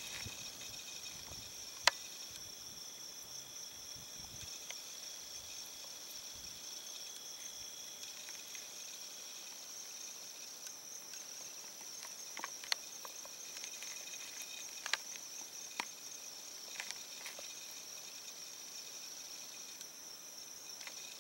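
Steady high-pitched buzz of insects calling, with a few sharp clicks: one about two seconds in and several more in the second half.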